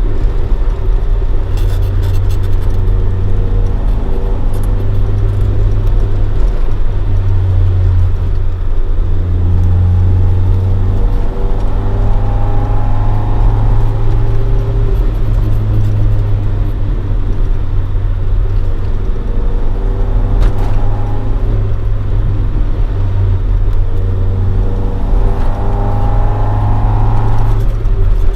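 Toyota AE86 Sprinter Trueno's swapped-in AE111 20-valve 4A-GE engine, on four individual throttles and breathing through a Fujitsubo Legalis R exhaust, running steadily while cruising. The engine note climbs gently twice, once about a third of the way in and again near the end, and drops off sharply just at the end.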